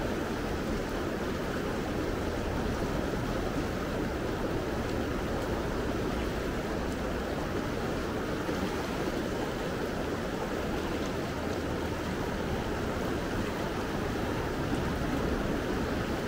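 The Gallatin River's current flowing, a steady wash of moving water with no break.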